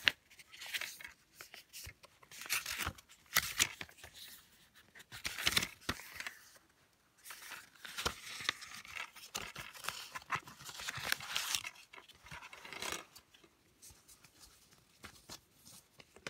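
Paper booklet rustling in irregular bursts as it is handled and flipped, with scattered small clicks from a plastic DVD case.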